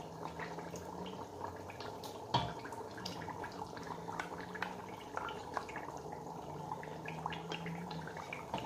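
Stainless steel stockpot of liquid at a rolling boil on an electric stove, bubbling and popping steadily, with one sharper knock about two and a half seconds in.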